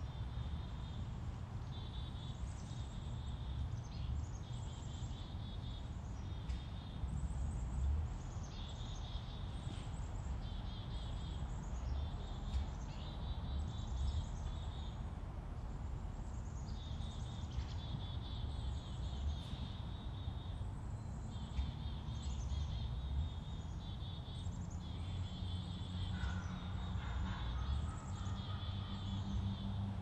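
Woodland ambience: a small songbird trilling over and over in high, second-long phrases, over a steady low rumble.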